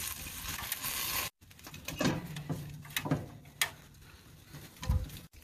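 Metal tongs clicking against a steel bowl and a grill grate as sauced chicken wings are moved onto the hot grate, with a sizzling hiss in the first second or so that cuts off suddenly. A dull knock comes near the end.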